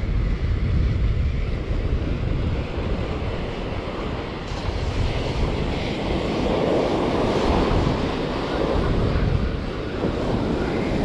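Strong wind buffeting the microphone over ocean surf breaking and washing up the beach, the surf swelling louder a little past the middle.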